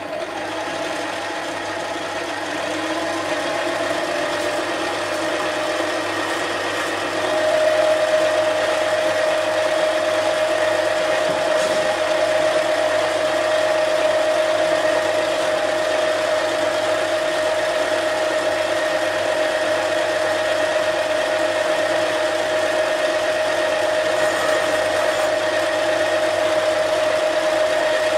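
Mini lathe running while its turning tool cuts a cast iron cylinder sleeve. A steady whine comes in about seven seconds in and holds.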